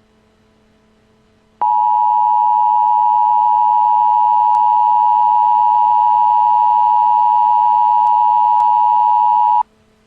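Emergency alert attention tone: a loud, steady electronic tone lasting about eight seconds. It starts about one and a half seconds in and cuts off abruptly, signalling the broadcast blizzard warning that follows.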